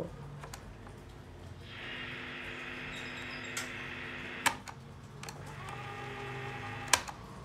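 Panasonic RQ-2732 portable cassette recorder running faintly, giving a steady tape hiss and hum before any music comes through its built-in speaker. Its piano-key buttons click several times, most loudly about four and a half and seven seconds in.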